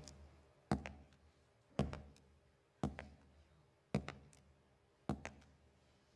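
Foley footsteps in a man's hard-soled dress shoe on a cement floor, a slow, even walk at about one step a second, each step a heel strike followed closely by a lighter toe tap.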